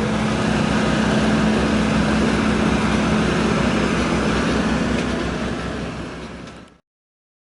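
Jet airliner engines running: a loud, steady rush with a steady hum underneath. It fades out near the end and then cuts off to silence.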